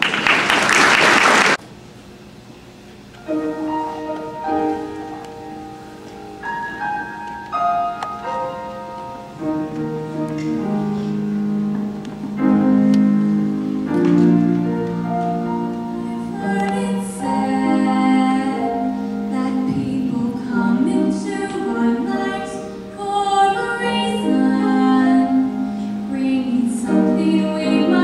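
A mixed high school choir singing, coming in about three seconds in with sustained chords that grow fuller and louder. A short, loud burst of noise comes at the very start, before the singing.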